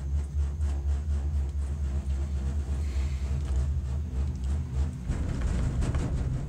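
Steady low rumble inside a moving cable-car gondola, with a rapid rattling clatter near the end as the cabin rolls past a support tower's sheaves.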